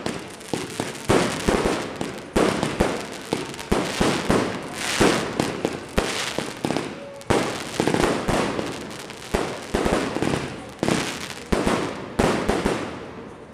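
Aerial fireworks going off in rapid succession: sharp bangs of bursting shells, about two a second, with crackling between them, dying down near the end.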